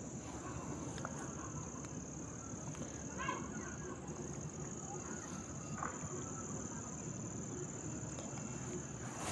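Insects trilling steadily in one high, unbroken tone, over a low background hum. A short pitched sound rises briefly about three seconds in.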